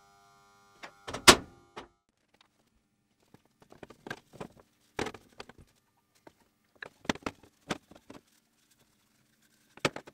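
A hand hammer strikes a steel punch at a bench vise once with a sharp ringing clang, about a second in. Scattered light knocks and clicks of things being handled on a workbench follow.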